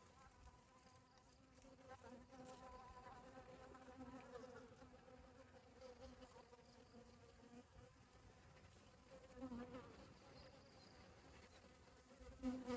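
Honeybees buzzing while foraging for pollen: a faint, wavering hum that swells each time a bee flies close, loudest near the end.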